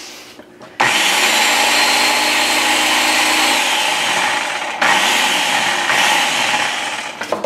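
Ninja food chopper's motor whirring as its blades grind dry ground coffee and seasoning salt into a fine powder. It starts abruptly, runs for about four seconds, stops for an instant, then runs again for about two more seconds before dying away.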